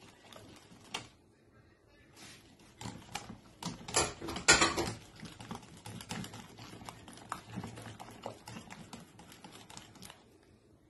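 Wire whisk beating eggs, sugar and melted butter in a glass bowl, the tines clicking rapidly against the glass. It is heaviest a few seconds in and stops near the end.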